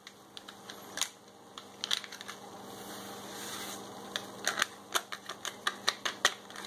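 Crinkling clicks of a dry-yeast foil packet being handled and shaken out over a bucket of wort, pitching the yeast: scattered sharp crackles, coming thick and fast in the last two seconds.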